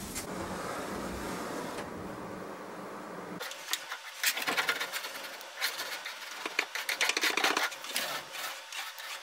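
A steady low hum and hiss, then a sudden change about three and a half seconds in to hand scrapers rasping in quick repeated strokes across a chest top, pushing off old varnish softened by paint stripper.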